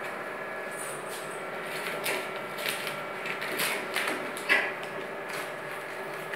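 A toddler's hands handling paper banknotes against an ATM's plastic slots: a run of short rustles and clicks, the loudest about four and a half seconds in, over a steady background hum.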